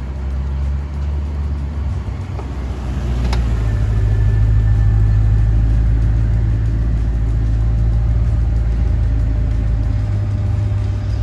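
C5 Corvette's V8 engine running, a steady low drone that gets louder about three seconds in and holds there, with one sharp click near the change.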